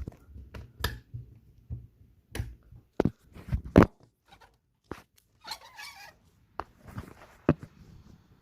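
A run of irregular sharp knocks and clicks with some rustling, close to the microphone. The loudest cluster comes about three to four seconds in.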